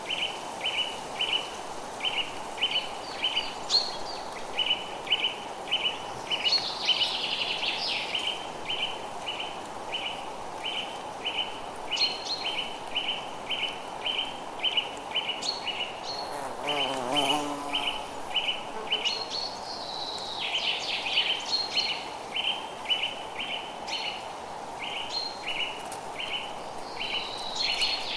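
Forest ambience: a steady run of short chirps repeating about twice a second, with other birds calling over it and a constant hiss underneath. A lower, wavering call cuts in about halfway through.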